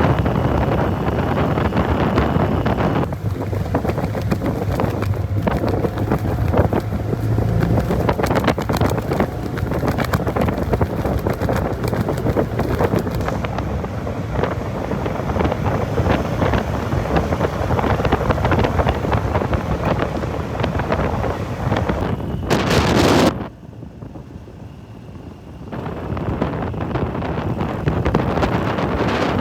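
Wind buffeting the microphone on a moving motorcycle, with the vehicle's running noise underneath. The rush drops away sharply for about two seconds near the end, then comes back.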